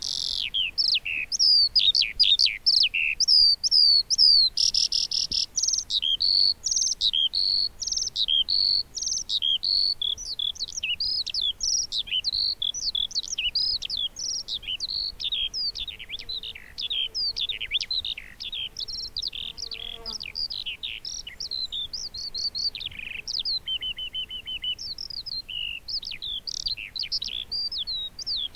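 Eurasian skylark (Alauda arvensis) singing: an unbroken, high-pitched stream of rapid chirps, slurred whistles and trills, with a buzzy phrase about five seconds in and a quick even trill a little past the twenty-second mark.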